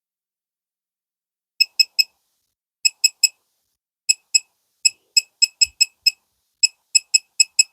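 Craftsman digital torque wrench beeping at each button press while its target torque is set: about twenty short, high beeps. They start about a second and a half in, first in clusters of two or three, then a steadier run of about four a second.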